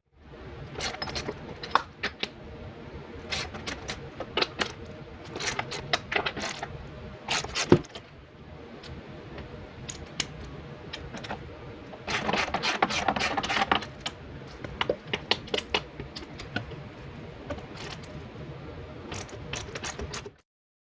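Hand tools working on suspension bolts under a car: scattered metallic clinks and clicks, with a denser run of quick clicking about twelve seconds in, as the shock bolts are worked loose.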